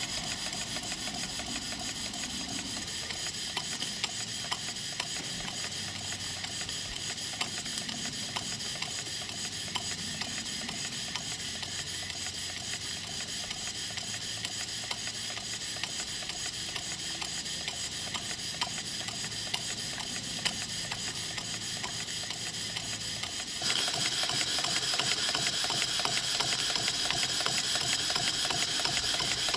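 Stuart 'James Coombes' model steam table engine running steadily on live steam, its valve gear and exhaust giving a fast, even ticking beat over a constant hiss of steam escaping from its many leaks. The hiss grows louder about three-quarters of the way through.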